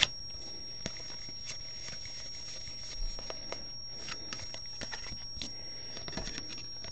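Baseball trading cards being flipped through by hand, with scattered light clicks and rustles as the card edges slide and tap against each other.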